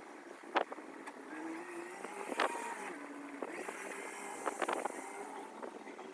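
A motor vehicle engine running at a distance, its pitch stepping up and down, with a few short light knocks over it.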